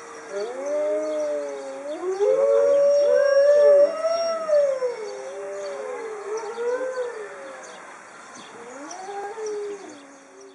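Alaska wolves howling in chorus, several long howls overlapping and rising and falling in pitch. The howls are loudest two to four seconds in, then die down towards the end.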